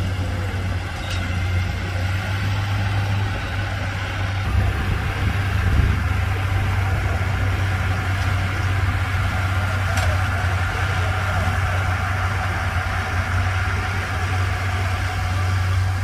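Komatsu crawler bulldozer's diesel engine running steadily with a deep, even drone.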